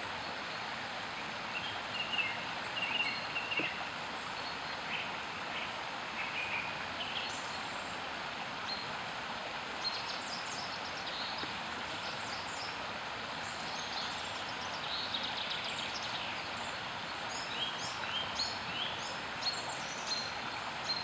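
Shallow stream rushing steadily over stones, with bursts of short high bird chirps and trills coming and going over the water noise.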